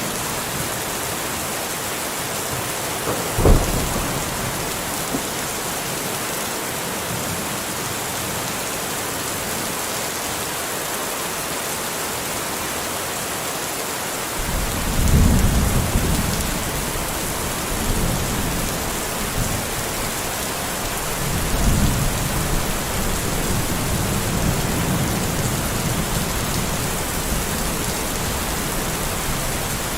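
Steady rain hiss with thunder: a sharp crack about three and a half seconds in, then low rolling rumbles about halfway through and again later.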